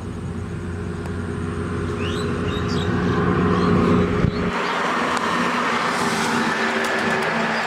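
Heavy truck passing on the road close by: engine hum and tyre noise swelling to a peak about four seconds in. The deep rumble cuts off abruptly just after that, while the tyre hiss carries on.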